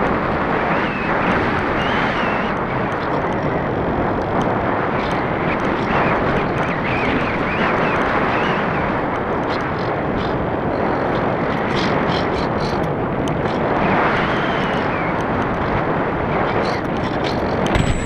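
Steady rush of air over the microphone of an action camera riding on a Parkzone Radian RC glider in flight, a loud even wind noise. A few faint ticks come through near the end as the plane gets low.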